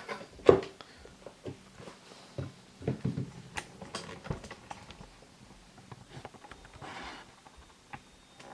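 Handling and putting on a knit-upper running shoe: scattered soft knocks, taps and rustling, with a couple of louder thumps near the start.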